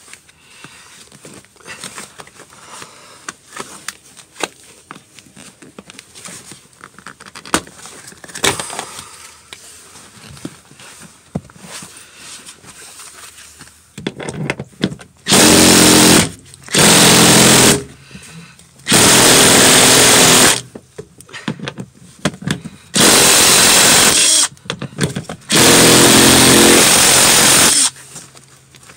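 Impact gun with a 14 mm socket on a Toyota Tundra seat-rail bolt. Scattered quiet clicks and handling come first; then, about halfway in, the gun hammers in five loud bursts of one to two seconds each. The bolt does not come out, and it looks stripped.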